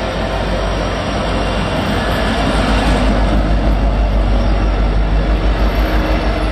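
Union Pacific diesel locomotives passing at close range at the tail of a freight train: a loud, steady low rumble of engines and wheels on rail, which takes on a quick pulsing beat in the second half as the last unit goes by.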